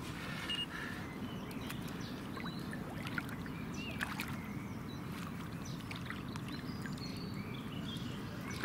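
Gentle water sloshing and lapping at the lake margin as a common carp is held in the shallows for release, with a few faint bird chirps now and then.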